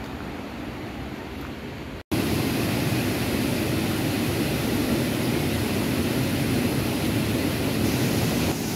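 Steady rush of a small waterfall pouring into a rocky pool, starting abruptly about two seconds in. It is preceded by a quieter, even rushing noise.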